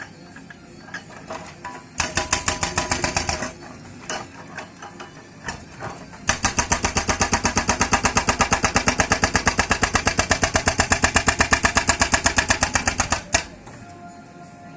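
Hydraulic breaker hammer on a JCB backhoe pounding in rapid, even blows. There is a short run of blows about two seconds in, then a long steady run of about eight blows a second from about six seconds in to near the end, with quieter gaps between the runs.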